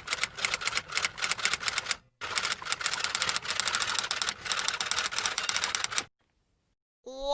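Typewriter sound effect: rapid, uneven clacking of keys in two runs, with a short pause about two seconds in, stopping about six seconds in.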